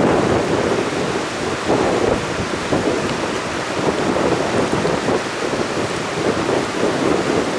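Gusty wind buffeting the microphone: a loud rushing rumble that keeps swelling and easing.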